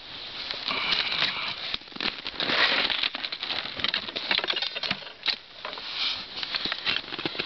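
Snow crunching and scraping with many small clicks and knocks as a snow-covered beehive lid is taken off, loudest about two and a half seconds in.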